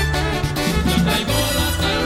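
Upbeat Latin dance music with a steady bass line.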